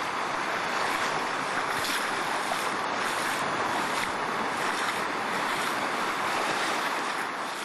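Surf washing in over a shallow sandy beach: a steady rush of small waves that fades out near the end.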